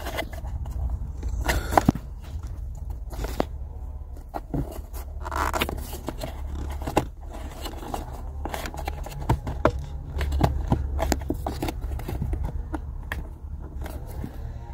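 Fingers scraping and clicking against the plastic cabin-filter housing and dashboard trim of a Peugeot 3008: scattered scrapes and sharp plastic clicks over a low steady hum.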